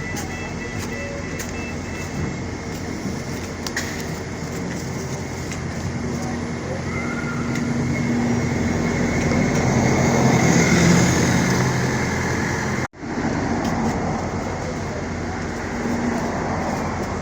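New Routemaster hybrid bus running with a steady drive hum. It grows louder about halfway through, then cuts out for an instant about three-quarters of the way in.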